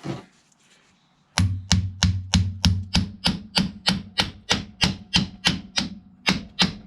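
Rapid hammer blows driving a replacement CV axle (front drive shaft) into the hub of a Honda TRX350 ATV. The blows start about a second and a half in and come evenly, about three a second, each a sharp knock with a short low ring.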